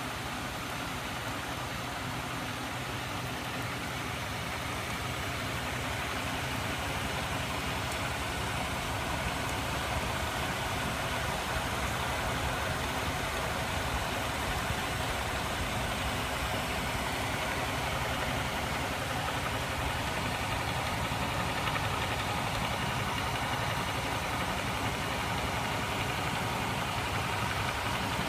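Homemade magnet engine running steadily, its small 12-volt electric motor spinning the crankshafts and rotating magnet assemblies. A continuous mechanical whir with a fast, even rattle, growing a little louder over the first several seconds.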